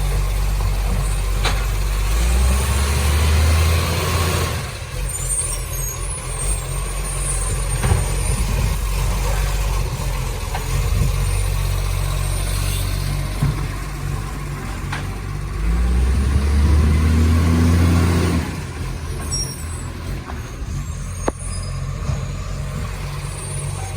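Garbage truck engine running, revving up twice for a couple of seconds each, with short hisses of air in between; the truck has an exhaust leak.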